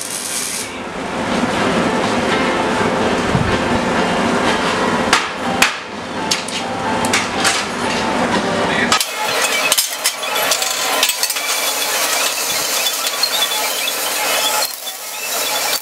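MIG welder crackling and hissing as it welds steel tubing, followed by a run of sharp clinks and knocks of steel and locking C-clamps being handled.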